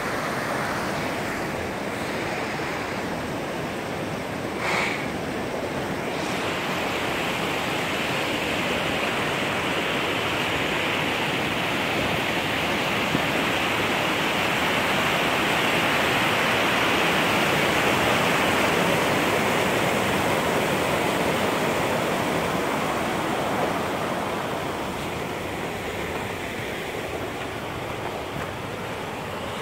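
Steady rush of a shallow mountain stream flowing over rocks, growing louder through the middle and easing off near the end.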